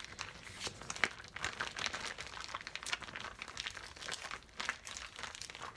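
Zip-top plastic bag crinkling and crackling irregularly as hands squeeze and knead it to mix chicken pieces with marinade inside.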